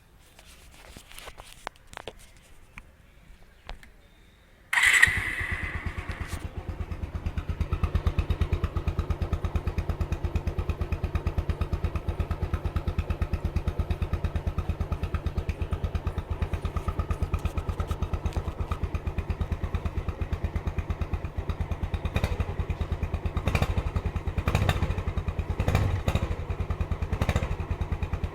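Bajaj Avenger 200cc motorcycle's single-cylinder engine on its stock exhaust: a few faint clicks, then about five seconds in it starts with a sudden burst and settles into a steady idle with an even exhaust pulse. A few short sharp sounds come near the end.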